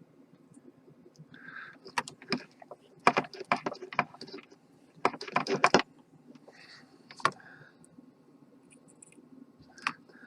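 Small metal soldering tools clicking and rattling against the bench in quick clusters, about two, three to four, and five seconds in, with a single click near seven seconds.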